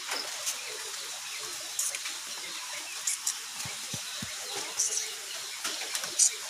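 Hands splashing in a plastic basin of water and handling stones, with short splashes and a few soft knocks against a steady background hiss.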